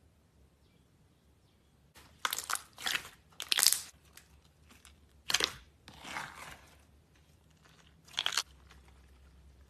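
Hands squishing and pressing a large batch of clear slime in a plastic tub, in about six short crackly bursts. They begin about two seconds in, and the loudest comes around three and a half seconds in.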